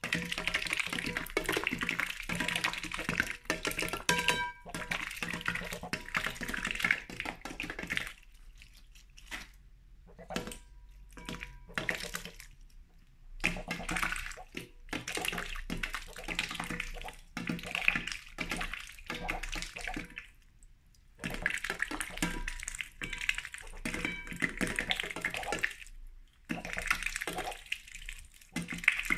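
A duck's bill splashing and dabbling through shallow water in a dish as it snaps up small live fish, in bursts of sloshing with a few quieter pauses of a second or more.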